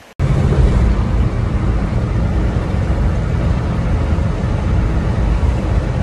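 A car driving, heard from inside the cabin: a loud, steady low rumble of road and engine noise that cuts in abruptly at the start.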